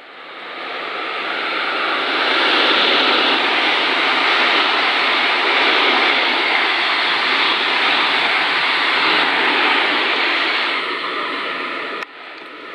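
JR West 223-series electric train passing the platform at speed: a steady rushing of wheels on rail that builds over the first couple of seconds, holds, and falls away near the end.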